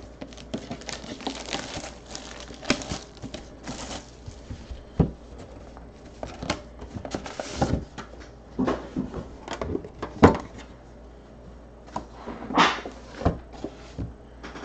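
Hands opening a thick cardboard trading-card box: the lid scraping and sliding off, with irregular taps and knocks of cardboard on the table, the sharpest about five and ten seconds in.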